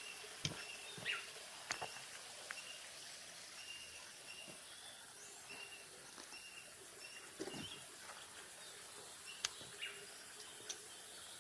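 Outdoor nature ambience: a steady hiss of running water, with a small animal's short high call repeated about every half second. A few sharp clicks and knocks sound, most of them in the first two seconds and near the end.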